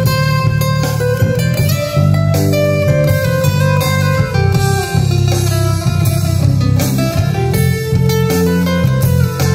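Amplified acoustic-electric guitar playing a lead melody over a steady low bass line: the instrumental break of a street band's song.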